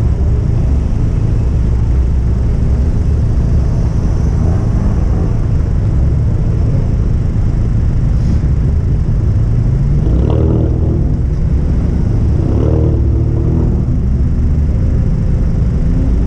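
A car driving under a loud, steady low rumble of engine and road noise. The engine revs up twice, briefly, about ten and twelve and a half seconds in.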